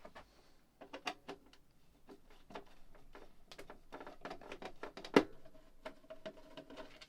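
Screwdriver clicking and scraping as a small machine screw is backed out of the side of a plastic boombox case, with one sharper click about five seconds in.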